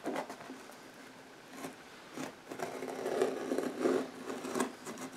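A knife scraping and slicing at the packing tape of a cardboard box, in short irregular strokes.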